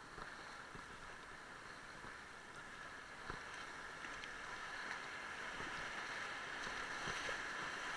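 Rushing whitewater of river rapids, a steady rush that grows louder as the raft nears them, with a few faint knocks.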